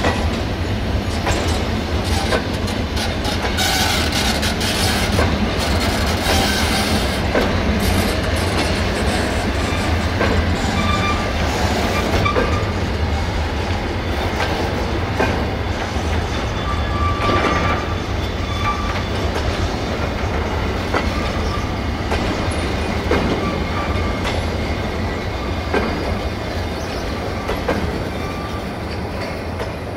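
Covered freight wagons of a passing freight train rolling by steadily, wheels clacking over rail joints, with brief wheel squeals a few times.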